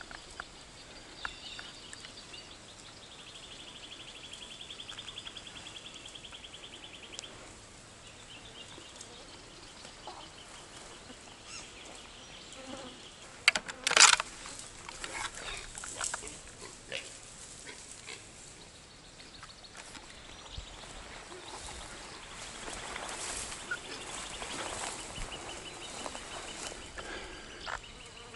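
An insect trills in fast, even pulses, once for a few seconds early on and again near the end, over faint rustling. About halfway through comes a short burst of loud knocks and scraping, and a longer stretch of rustling follows.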